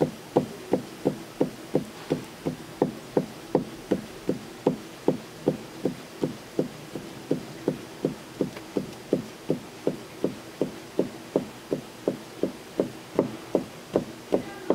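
Knife chopping on a cutting board in a steady, even rhythm of about three strokes a second, cutting cuttlefish for sashimi.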